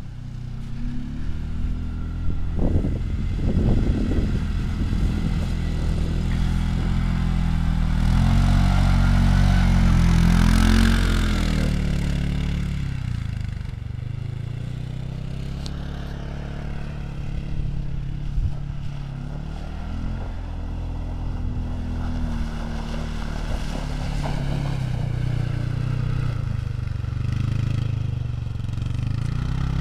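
Off-road vehicle engine running under way, its pitch rising and falling with the throttle. It grows louder about eight seconds in and eases off around thirteen seconds, with a short clattering a few seconds in.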